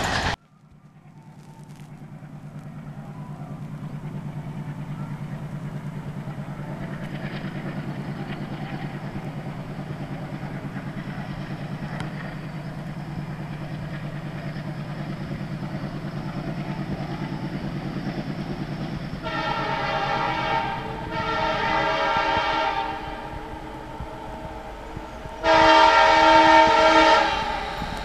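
ALCo WDM 3D diesel locomotive approaching: a steady low engine hum that grows louder, then three blasts of its horn, two close together and a third, louder one near the end.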